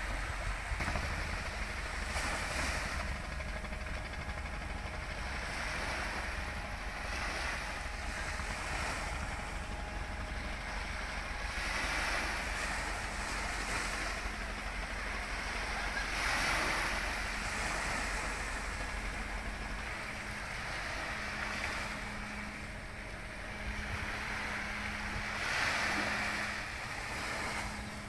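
Sea water washing against the pier with wind noise, swelling and easing every few seconds, under the low running hum of a ro-ro ferry coming alongside. A steady low hum becomes clearer about two-thirds of the way through.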